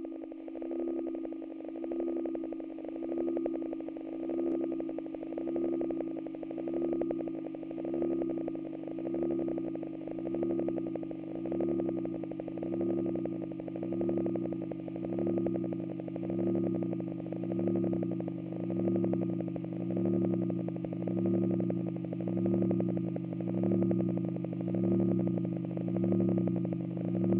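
Electronic ambient drone of several held low tones, swelling and fading in a slow, even pulse about once every second and a quarter.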